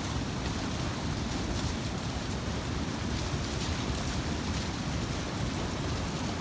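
Waterfall rushing steadily, water raging over rocks and under a cover of ice.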